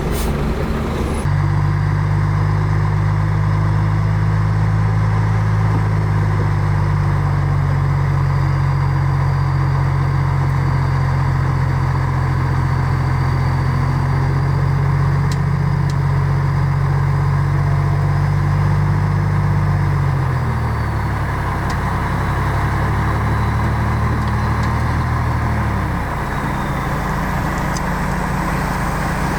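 Heavy diesel engine of earthmoving machinery (bulldozer or dump truck) running under load; the engine note drops about two-thirds of the way through, holds lower for a few seconds, then changes again near the end.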